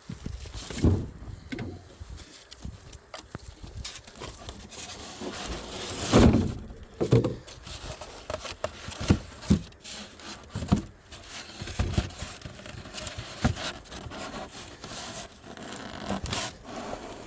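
Wooden beehive parts being handled: irregular knocks and scrapes of wood on wood, the loudest cluster about six seconds in.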